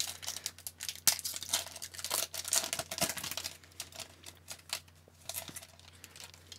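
A foil-lined hockey card pack wrapper being torn open by hand and crinkled as the cards are pulled out. The crackling is dense for the first three seconds or so, then thins to a few rustles.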